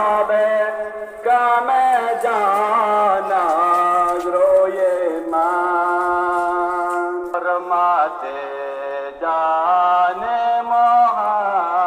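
A man singing a devotional qasida in long, held, ornamented notes that bend in pitch, with short breaks between phrases.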